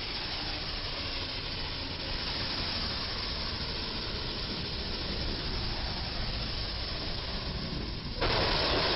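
Steady hiss of traffic and tyres on a rain-wet road. About eight seconds in it turns suddenly louder as the road noise swells.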